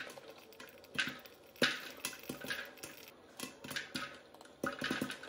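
Popcorn kernels popping in an electric stir-type popcorn popper under its clear plastic dome lid: scattered sharp pops at an irregular pace, coming quicker near the end.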